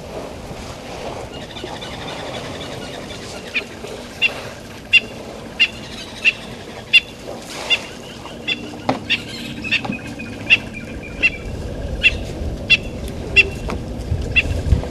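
A bird repeating a short, sharp call about one and a half times a second, beginning a few seconds in. A low rumble builds near the end.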